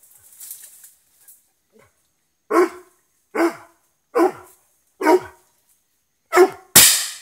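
A dog barking: five short barks spaced about a second apart, then a much louder, harsher burst near the end.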